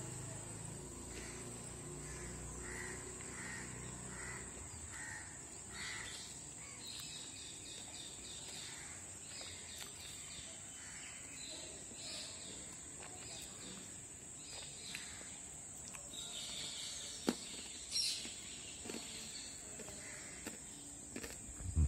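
Outdoor ambience with birds calling in the background: series of short, evenly repeated calls. A couple of sharp knocks come about three-quarters of the way through.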